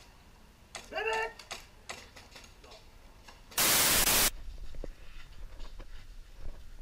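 A loud burst of static hiss, about two-thirds of a second long, a little past halfway: the noise of a glitch-style video transition. Before it, scattered sharp clicks and a short voice call about a second in.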